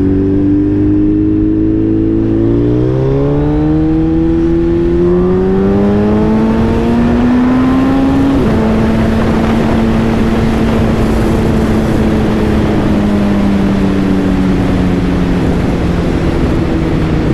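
Suzuki Hayabusa's inline-four engine under way. It pulls through a gear with its pitch climbing for several seconds, drops sharply at an upshift about eight seconds in, holds a steady cruise, then eases off near the end. Wind rushes past the microphone, growing with speed.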